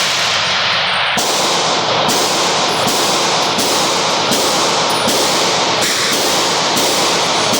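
Loud, steady hiss of noise, even across high and low pitches like static, shifting slightly about every half second.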